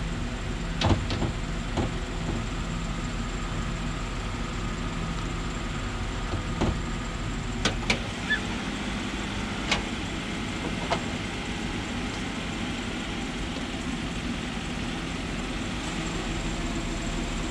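An SUV's hood being opened by hand: a few clicks as the latch is released, a clunk as the hood goes up, then knocks as the metal prop rod is set. These sit over a steady background hum.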